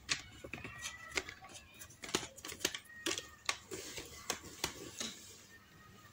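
A quick, irregular run of light clicks and taps of small objects being handled, thinning out and stopping about five seconds in.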